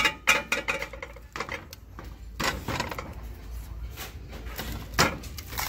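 Stack of shrink-wrapped ceramic dinner plates handled on a metal store shelf: a run of light clicks and knocks as the plates shift against each other and the shelf, with sharper knocks about two and a half seconds in and near the end.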